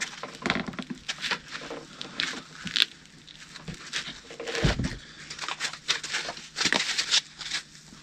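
Foam pipe insulation being pressed and worked by hand around a metal drain fitting: irregular scratchy rubbing with small clicks, and a dull thump just before the middle.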